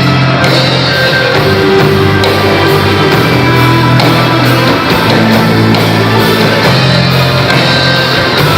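Band playing loud rock music with electric guitar, a steady beat and held bass notes that change every second or two.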